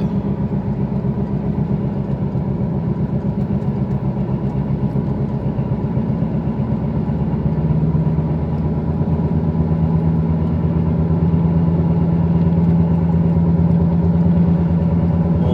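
Worn driver's-side front hub bearing on a 2008 Volkswagen Passat 2.0 droning inside the cabin at highway speed: a low, throbbing hum that settles into one strong tone and grows slightly louder about halfway through as the car speeds up.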